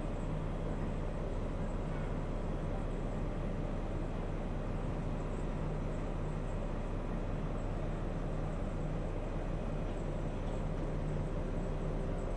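Steady low drone of an engine idling evenly, with no change in pitch or level.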